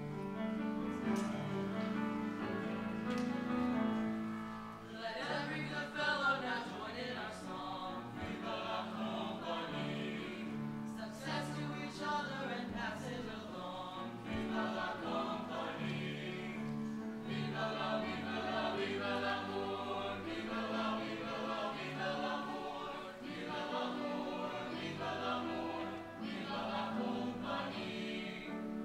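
Teenage boys' choir singing in parts, accompanied by piano. The music begins right at the start, and the voices grow fuller about five seconds in.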